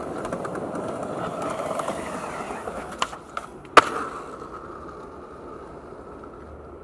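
Skateboard wheels rolling on smooth concrete as a steady hiss, with a couple of light clacks of the board about three seconds in and one sharp, loud clack just after; the rolling then fades away.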